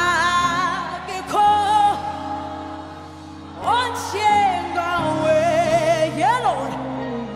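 Slow sung music: a single high voice holds long notes with wide vibrato, in three or four phrases, over steady sustained accompanying chords.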